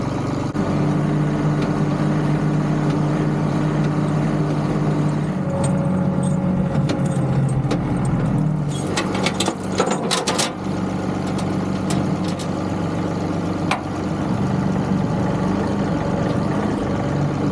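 John Deere 2038R compact tractor's diesel engine running steadily, with a brief jangling, clinking rattle about halfway through.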